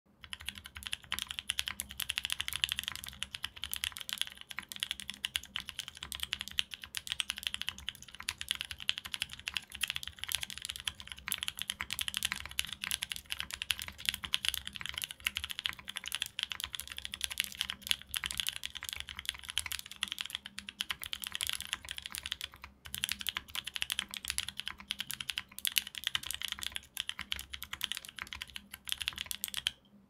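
Fast touch-typing at about 107 words a minute on a mechanical keyboard with lubed, filmed JWK Cotton Candy linear switches, an FR4 plate, neoprene dampening and GMK Hammerhead keycaps. It is a dense, unbroken stream of keystrokes, with one brief pause about three-quarters of the way through.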